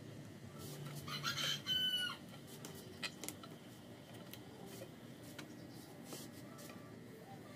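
A rooster crowing once, about a second in, followed by a few scattered light clicks.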